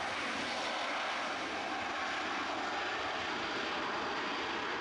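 Jet airliner's engines, heard as a steady, even rushing noise without a clear tone.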